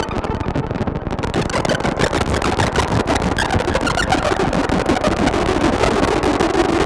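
Novation Bass Station 2 analogue synthesizer playing a dense, noisy drone that stutters in rapid pulses as its amp/mod envelope loops on retrigger, smeared by a tape-echo effect. In the second half a steadier low-mid tone comes up under the pulsing.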